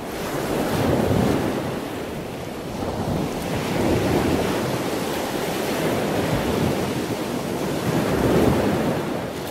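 Ocean surf breaking and washing ashore: a continuous rush that swells and eases several times, with some wind.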